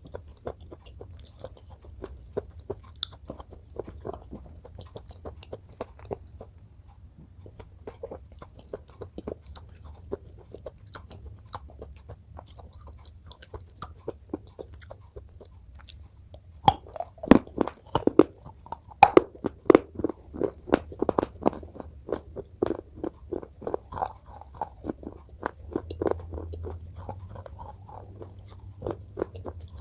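Close-miked mouth crunching and chewing of something hard and brittle: soft steady chewing clicks at first, then, a little past halfway, a series of much louder crunching bites.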